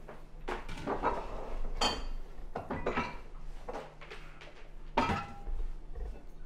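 Glass liquor bottles being picked up and set down on a kitchen counter and into a cardboard box: a run of knocks and clinks, with a ringing glass clink about two seconds in and a louder knock about five seconds in.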